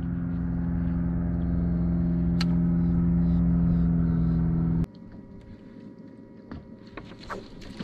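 A steady engine drone with a strong low hum, which cuts off abruptly a little under five seconds in. After that only faint background sound and a few light clicks remain.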